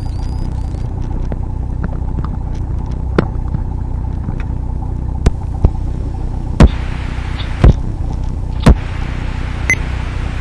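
Dyke Delta's Mazda rotary engine running, heard through the aircraft intercom as a steady low rumble. About six sharp clicks come through it from about three seconds in.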